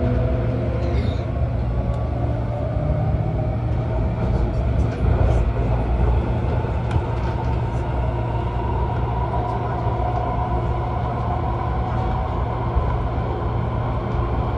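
Cabin running noise of an MTR Airport Express Adtranz-CAF A-Train under way: a steady low rumble of wheels on rail, with a faint steady whine above it.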